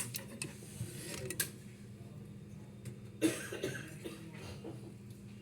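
Clicks and clacks from the plastic parts of an HP LaserJet printer being handled during repair, over a steady low hum, with one louder short burst about three seconds in.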